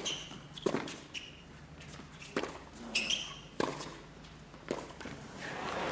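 A tennis rally on a hard court: about six sharp racket strikes on the ball, opening with a serve, with shoe squeaks between shots. Crowd noise rises near the end.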